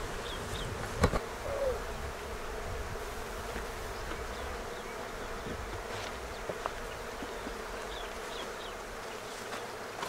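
Honey bees buzzing steadily around an opened hive, with a single knock about a second in.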